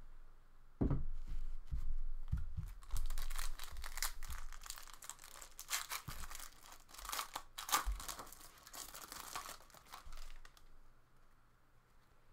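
A foil wrapper on a pack of 2017-18 Upper Deck Ice hockey cards being torn open and crinkled, in irregular rips and rustles, with a few low handling thumps in the first few seconds. The sound dies down near the end.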